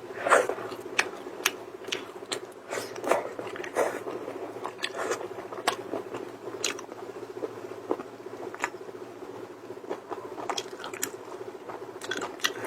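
Irregular crisp cracks and crunches, about one or two a second, of hard shell being broken and chewed while eating, over a steady low hum.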